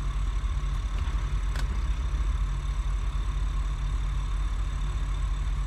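Motor yacht's engine running at idle with a steady low hum while the boat is eased back into its slip, with one faint tick about a second and a half in.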